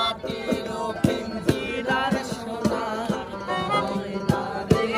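Melodica played live, a reedy keyboard melody with someone singing along and regular percussion strokes keeping the beat.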